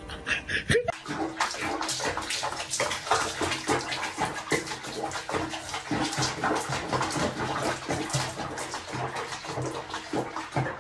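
Water splashing and sloshing in a small plastic bath basin holding a cat, starting about a second in and going on as an irregular, crackly wash.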